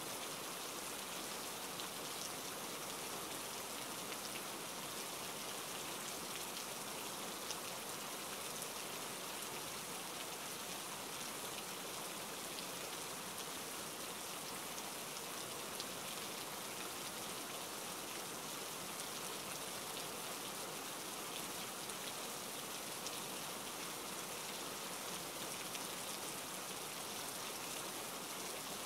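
Steady, quiet rain falling: an even hiss with scattered small drop ticks.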